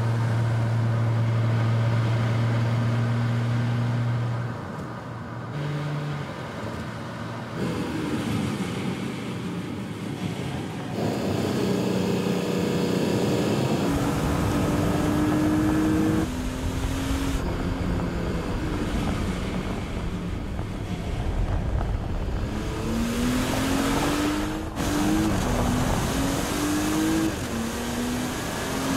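Porsche Cayenne E-Hybrid's 3.0-litre turbocharged V6 engine heard over several driving passes. It starts with a steady engine note. Near the end it accelerates, the note climbing and dropping back at each upshift, with tyre noise on loose sand.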